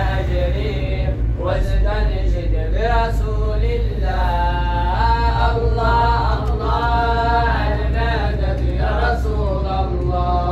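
Unaccompanied vocal chanting: a melodic voice holds and bends long notes, with no instruments. A steady low rumble from the car on the road lies beneath it.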